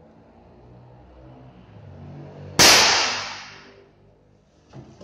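A PCP air rifle fitted with a muzzle brake fires a single shot about halfway through: one sharp crack that dies away over about a second.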